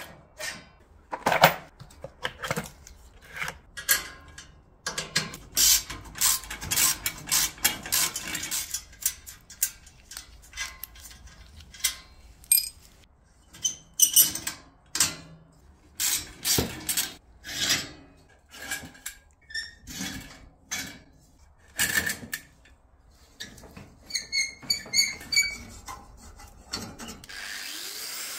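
Steel pram wheel being worked off a rusty axle: a long run of irregular metal clinks, knocks and scrapes. Near the end an angle grinder starts up with a steady hissing run.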